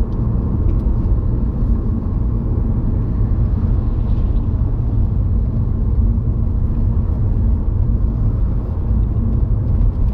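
Car driving along a country road, heard from inside the cabin: a steady low rumble of road and engine noise.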